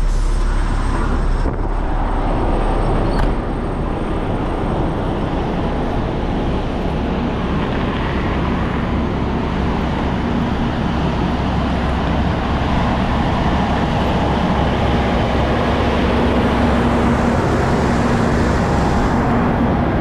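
Steady highway traffic noise of vehicles and trucks running on a bridge, with a low steady hum through the second half.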